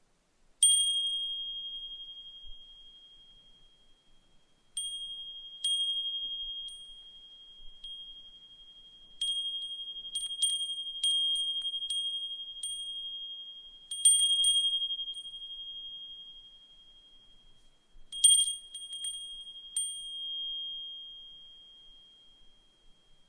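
Brass suzumushi furin (Japanese wind chime) ringing with one clear, high tone. A single strike comes near the start, then after a pause come scattered strikes and quick clusters of strikes, each ringing out slowly, the last one fading away near the end.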